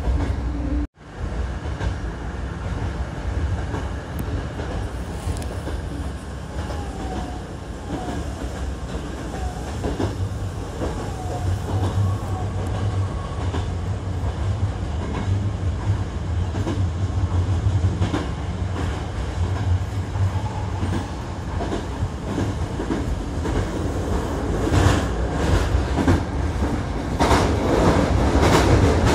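Hankyu electric commuter train running, heard from inside the front car: a steady low rumble of wheels on rail with the clickety-clack of rail joints. A few short squeals come from the wheels partway through. Near the end the clacking grows louder and busier as an oncoming train passes.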